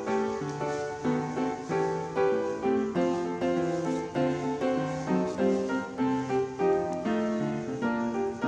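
Background piano music: a continuous run of notes, one after another.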